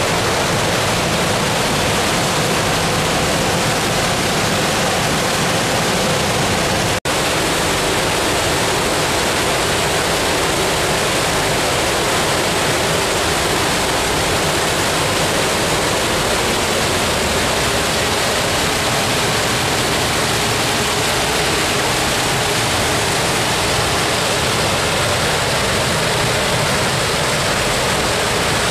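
Rainwater pouring in a steady stream from an inlet channel into a berkeh, a traditional round water cistern, splashing onto the water below as the reservoir fills. The sound cuts out for an instant about seven seconds in.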